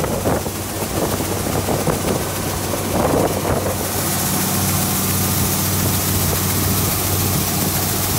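A combine's engine runs with a steady hum. From about four seconds in, a loud, even hiss joins it as shelled corn streams from the unloading auger into a gravity wagon.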